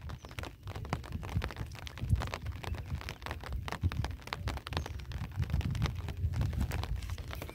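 Rain pattering, with many small irregular ticks of drops over a low, uneven rumble.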